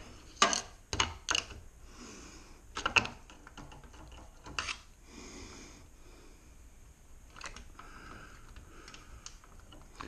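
Sporadic metallic clicks and clinks, a handful at irregular spacing, from a Liftmaster garage door opener's slack drive chain being worked by hand to walk it off its sprocket.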